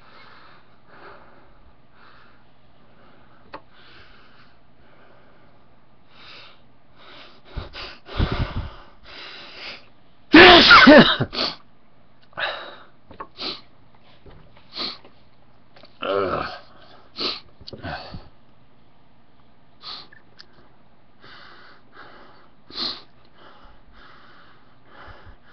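A person sneezing again and again, with sniffs and breathy inhales in between. The loudest sneeze is a long, voiced one about ten seconds in, and another strong one comes around sixteen seconds, followed by several shorter sneezes and sniffs.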